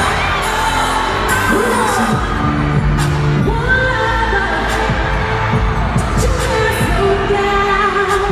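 Live R&B/pop song through a concert PA: a woman sings a melody into a handheld microphone over a loud backing track with a deep bass beat and sharp percussion hits.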